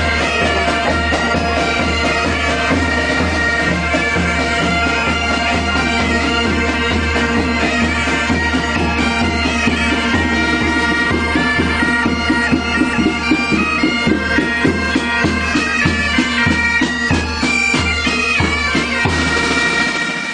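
Music from the show's soundtrack: a reedy wind melody over steady held drone notes, with a low pulse repeating throughout.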